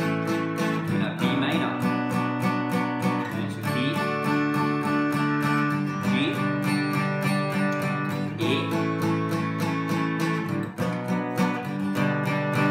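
Steel-string acoustic guitar strummed steadily through a chord progression, the chord changing about every two and a half seconds.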